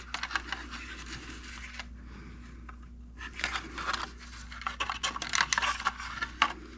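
Small plastic RC cars being handled on a hard surface: light scraping and scattered sharp clicks, busier in the second half, over a faint steady hum.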